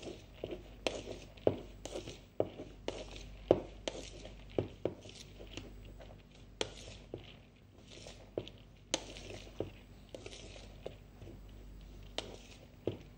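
A spoon stirring cooked rice with spice powder and ghee in a plastic mixing bowl: irregular clicks and knocks of the spoon against the bowl, a few a second, with soft swishes of the rice being turned.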